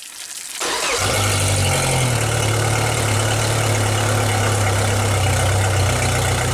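Mercury 30 outboard motor running at a steady speed with a knocking noise from inside the engine, a sign of internal wear serious enough that the engine has to be taken apart to find the cause.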